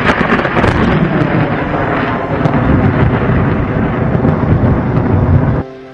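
Thunderstorm: a loud thunder crack, then heavy rolling thunder that cuts off suddenly near the end.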